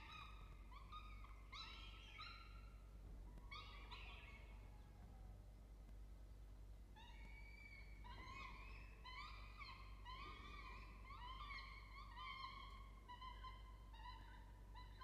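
Peregrine falcon chick begging while an adult feeds it: faint, short, pitched calls repeated in a run. A few calls come in the first seconds, then a pause of about two seconds, then a closer series of two or three calls a second.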